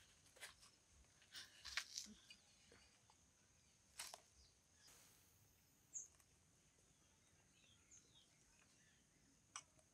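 Near silence with a few faint scattered clicks and knocks as peeled cassava pieces are handled in a metal bowl and a wire frying basket, and one short high chirp about six seconds in.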